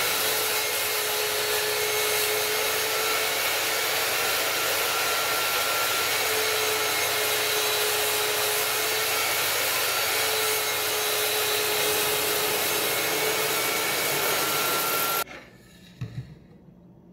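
Table saw running and cutting a board pushed through on a crosscut sled: a loud, steady rush of motor and blade noise that stops abruptly about fifteen seconds in. A couple of light wooden knocks follow near the end.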